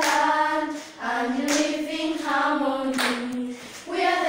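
A group of school children singing a song together, unaccompanied, with a few sharp hand claps.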